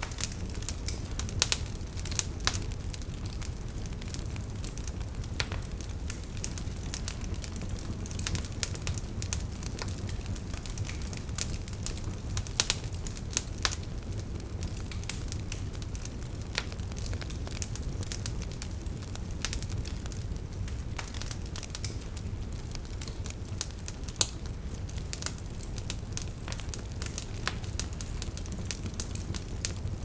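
Wood fire crackling: irregular pops and snaps of burning firewood over a steady low rumble.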